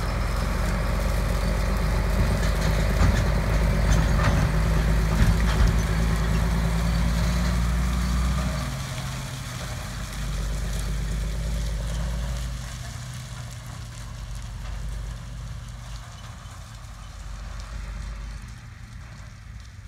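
Heavy farm machinery's diesel engine running steadily, loud for the first eight seconds or so, then quieter and fading toward the end.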